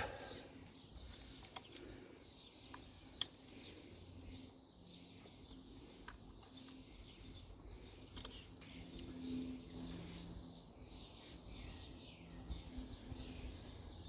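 Quiet garden background with birds chirping, a few sharp clicks of small parts being handled, and a faint steady low hum.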